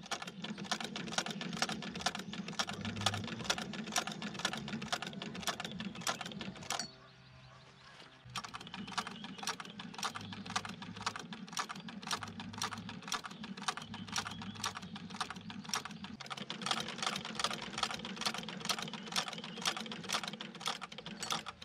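A 1904 Singer shuttle sewing machine, turned by hand, stitching through denim. It makes a steady clatter of about four stitches a second over a low running hum, stops for a moment about seven seconds in, then starts again.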